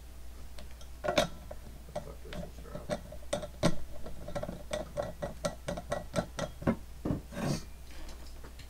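A run of short, sharp clicks or taps at an uneven pace, about three a second, starting about a second in.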